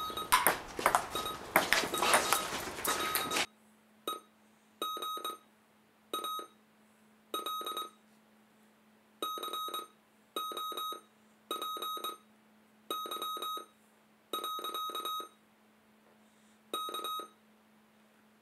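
Electronic beeping: about ten short tones, each around half a second, repeated at irregular gaps of one to two seconds over a faint steady low hum. For the first three and a half seconds a loud jumble of noise and clicks covers the beeps, then cuts off suddenly.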